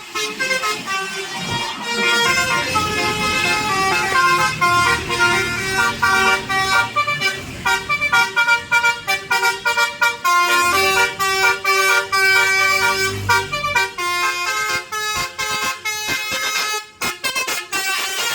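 Bus 'telolet basuri' musical air horn playing a fast tune of short notes that jump between several pitches, over a running bus engine.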